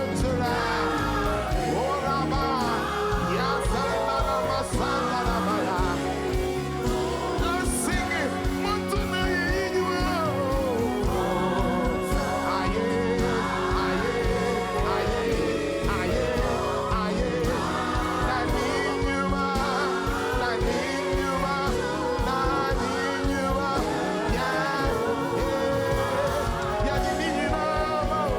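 Gospel worship music: singing that bends and slides in pitch over steady instrumental accompaniment.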